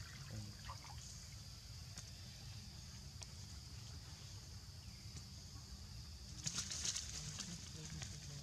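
Outdoor forest ambience: a steady high-pitched insect drone over a low rumble, with a brief burst of crackling rustle about six and a half seconds in.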